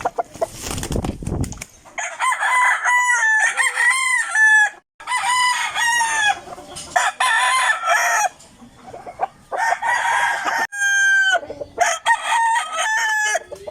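Roosters crowing, several long crows one after another. A burst of rumbling noise comes in the first second or two.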